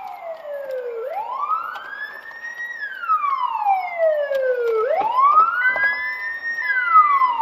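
Emergency vehicle siren wailing: its pitch sweeps up in under two seconds, then falls slowly, twice over. A steady tone joins it about halfway through.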